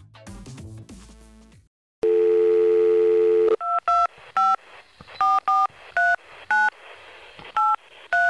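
Music fades out. About two seconds in a telephone dial tone sounds for about a second and a half. It is followed by a number being dialled on a touch-tone phone: about ten short two-note beeps in uneven groups.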